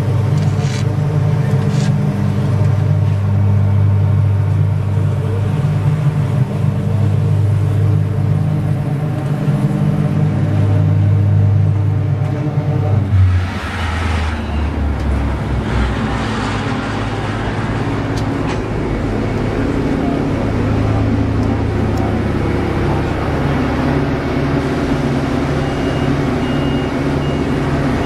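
Diesel engines of heavy concrete paving machinery running steadily; the engine sound changes abruptly about halfway through. Near the end a reversing beeper starts sounding in a steady series of beeps.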